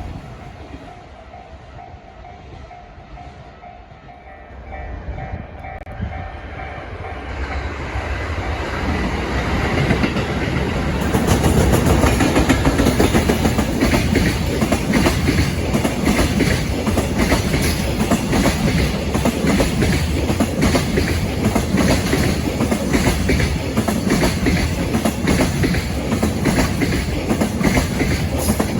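Electric-locomotive-hauled freight train approaching and passing close: the rumble and clatter of wheels over the rail joints swell from faint to loud over the first ten seconds or so, then hold as a steady dense clatter of wagons rolling by.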